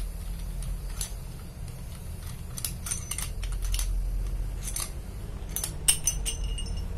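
Scattered light metallic clicks and taps of a diesel connecting rod's big end and its bearing shell being handled, metal on metal, over a steady low hum.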